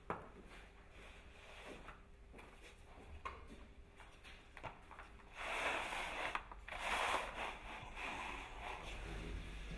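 Faint handling clicks, then from about five seconds in a foam float rubbing in repeated strokes over a studded plastic uncoupling mat, pressing the heating cable down between the studs.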